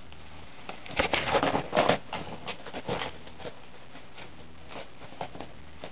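Reusable fabric shopping bag rustling and scratching as a cat pounces on it and claws at it: a quick flurry of scrabbling about a second in, then a few lighter scratches that thin out.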